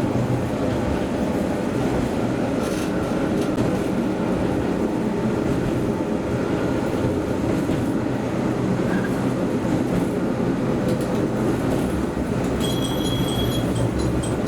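A train running along the track: a steady rumble of wheels on rails and running gear. Near the end a set of high, steady tones comes in over it.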